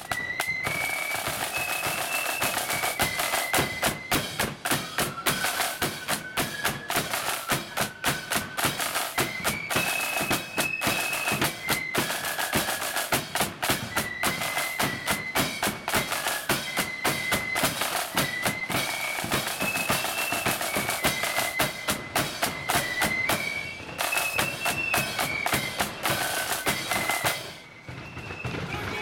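Marching flute band playing a tune: flutes carry a high melody of held notes over rapid, continuous snare-drum strokes. The music drops away briefly near the end.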